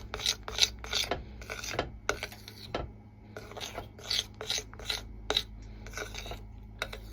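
A utensil scraping round a glass bowl, stirring melting dark chocolate to work out the last lumps: short repeated strokes, about three a second, with a brief pause about three seconds in.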